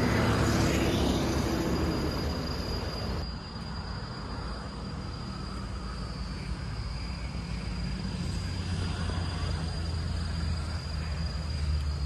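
Outdoor park ambience: a steady high-pitched insect drone over a constant low rumble. The background shifts abruptly about three seconds in.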